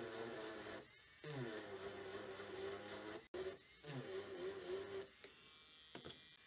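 Dremel Stylo+ rotary engraving tool running, its bit cutting into a wooden spoon in three stretches of one to two seconds, the droning note wavering in pitch as the bit bites. Between the stretches and near the end only the motor's quieter steady whine remains.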